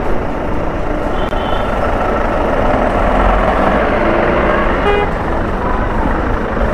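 Steady rush of wind and traffic noise while riding a two-wheeler through a congested town street, with short horn toots about a second in and again near five seconds.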